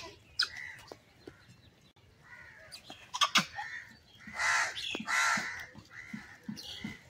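Harsh, rasping animal calls, about five in a row, each about half a second long, starting a little over two seconds in.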